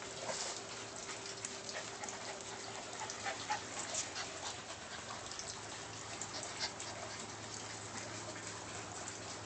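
Small dog giving a few short, quiet whimpers about three to four seconds in, over light rustling from the phone being moved and a faint steady hum.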